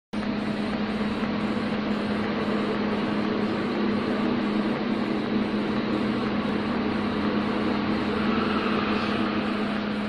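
Automatic TIG welding machine welding a circumferential seam on a water heater tank: a steady hum over an even hiss.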